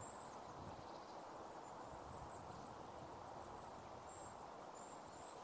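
Faint rural outdoor ambience: a low steady hiss, with a thin high-pitched tone that comes and goes.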